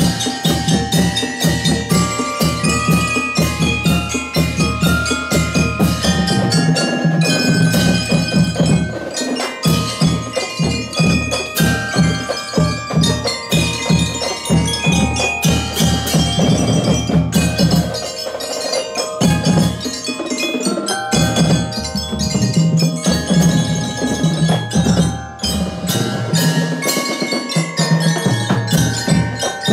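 A drum and lyre corps playing: a row of keyboard bell lyres struck with mallets carries the ringing melody over a steady beat of bass and snare drums.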